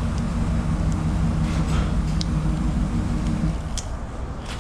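A steady low mechanical hum, like a motor or engine running, stops about three and a half seconds in, with a few light clicks of metal brake parts being handled.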